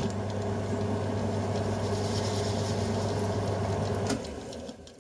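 Mini metal lathe's motor and gear train running steadily under power during a thread-cutting pass, then switched off about four seconds in and winding down, with a sharp click at the end.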